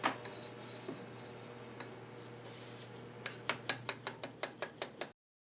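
A run of light, sharp metallic clicks, about five a second, in the last couple of seconds, over a steady low hum: metal tools or parts being worked on the milling machine.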